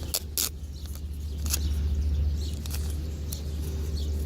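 Handling of AirPods packaging: a few scattered light clicks and taps, irregularly spaced, over a steady low hum.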